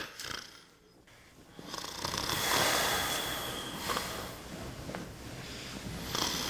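A man snoring: one long snore begins about a second and a half in, followed by a quieter stretch and the start of another snore near the end.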